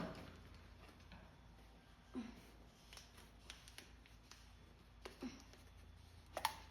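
Mostly quiet, with a few faint short knocks and clicks a couple of seconds apart, from handling.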